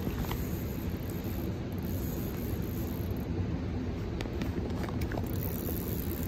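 Steady rush of a fast river running through rapids, with a few faint clicks.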